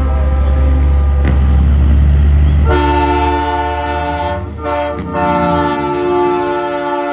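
Semi truck's engine running low as it approaches. About three seconds in, a truck-mounted train horn sounds a loud chord of several steady notes. The chord breaks twice briefly and is still sounding at the end.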